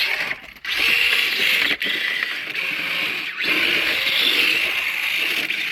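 RC rock crawler's small electric motor and gearing whining steadily under load, stopping briefly three times.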